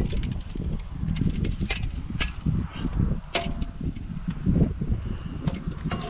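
Wind buffeting the microphone as an uneven low rumble, with a few sharp clicks and taps scattered through it.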